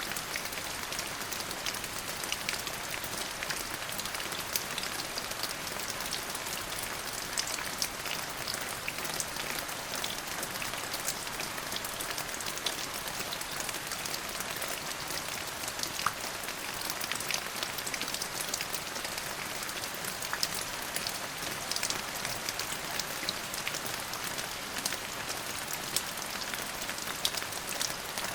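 Steady rain falling, with many sharp individual drop ticks scattered through the even hiss.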